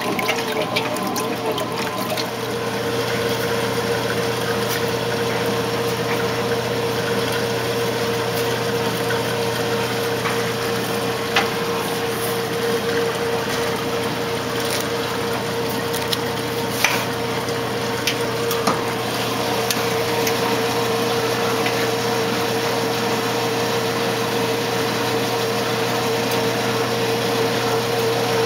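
1968 Kenmore 900 series washing machine running: water sloshing for about two seconds, then a steady hum with its pump draining the wash water as the machine moves on toward spin. A few light clicks come through along the way.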